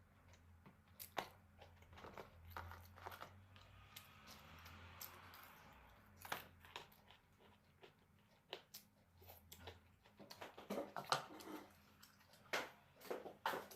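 A person chewing food close to the microphone, with scattered faint clicks and smacks that come thicker near the end, and a soft hiss for about two seconds in the middle.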